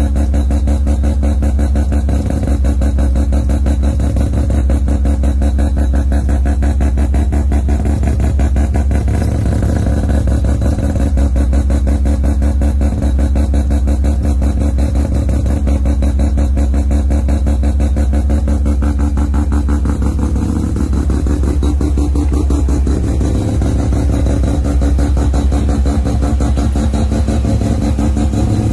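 Rotary engine in a swapped Toyota idling loudly and steadily, its exhaust a rapid, even pulsing.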